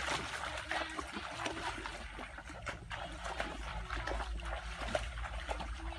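Barefoot wading through shallow water: irregular splashing and sloshing of legs moving through the water.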